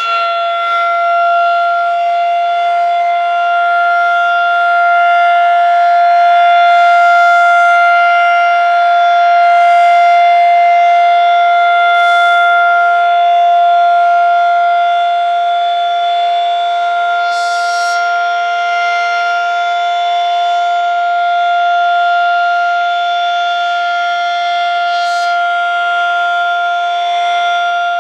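Federal Signal 2001-130 electromechanical rotating siren sounding its single steady tone during a test, at full pitch with no wind-up or wind-down. Its loudness swells and fades gently as the rotating horn sweeps around.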